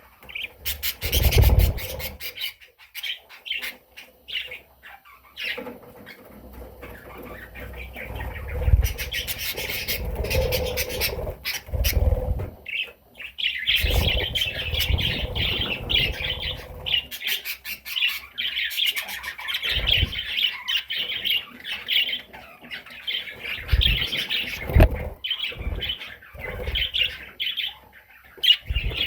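Budgerigar chirping and warbling in quick, busy chatter that becomes almost continuous about halfway through, with a few short low thumps mixed in.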